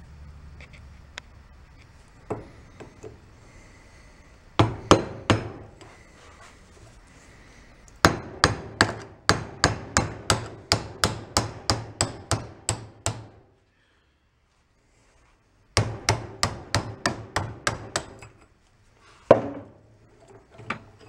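Hammer striking a brass rod held down inside an engine part clamped in a bench vise, driving out a stuck piece. There are two strikes, then two runs of steady blows at about three a second, and a last single strike near the end.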